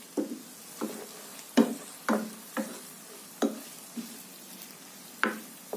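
Wooden spatula scraping and knocking against a nonstick frying pan as chopped green chillies are stirred in hot oil, about ten strokes roughly half a second apart, over a faint sizzle.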